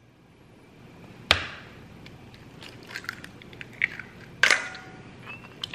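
An egg cracked over a small bowl: a sharp tap about a second in, quieter clicks and crackling of shell, then a louder knock with a brief ring.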